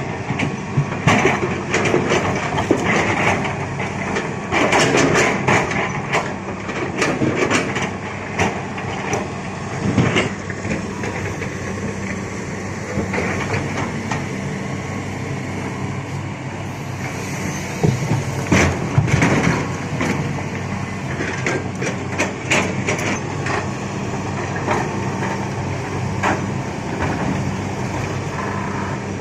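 Excavator's diesel engine running steadily while large rocks knock, grind and clatter against the bucket and each other as they are scooped and loaded, with bursts of impacts in the first ten seconds and again past the middle.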